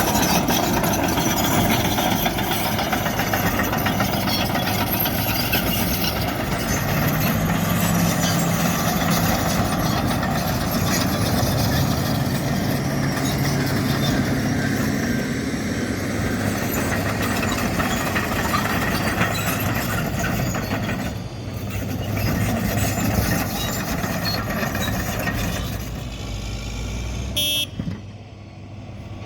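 Heavy diesel earthmoving machinery running steadily under work. Near the end the noise falls away and a short high tone sounds once.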